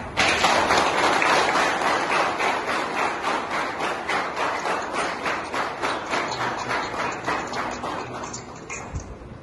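A group of people applauding. It starts suddenly and slowly fades over about nine seconds.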